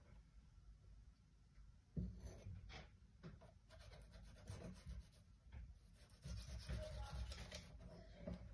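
Small knife faintly scraping and slicing as the skin is cut away from a perch fillet, with a sharp knock about two seconds in and a run of quick scratchy strokes in the second half.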